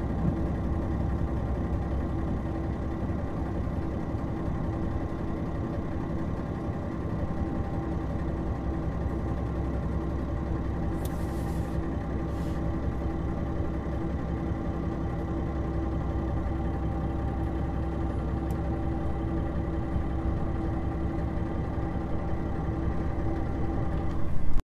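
JR Shikoku 2000-series diesel railcar standing with its engine idling: a steady, unchanging diesel hum with a few held tones. There are two faint clicks about halfway through.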